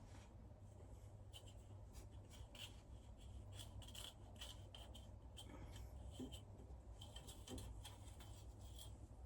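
Near silence with many faint, light scratches and ticks from parts being handled, over a low steady hum.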